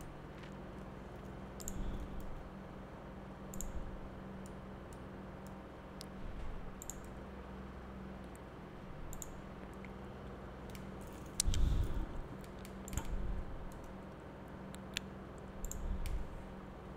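Scattered clicks of a computer mouse and keyboard keys, one every second or two, over a faint steady low hum.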